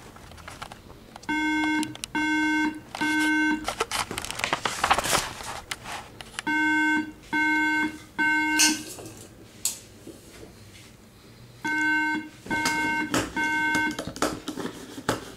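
An iMac giving a strange repeating beep: three short beeps about half a second apart, the set of three coming three times roughly every five seconds. The machine is faulty and unresponsive, its mouse and keyboard not recognised. A burst of broad hissing noise comes between the first two sets.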